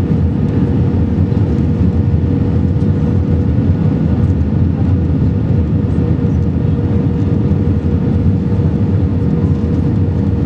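Steady cabin noise inside an Airbus A320-family airliner on final approach with flaps extended: a deep, even rumble of engines and airflow with a steady hum running through it.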